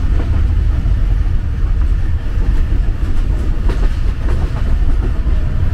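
Passenger train carriage in motion, heard from inside the compartment: a steady low rumble with a few faint scattered rattles.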